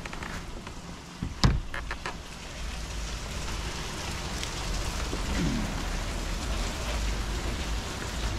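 Steady rain falling, with a cluster of sharp knocks about a second and a half in.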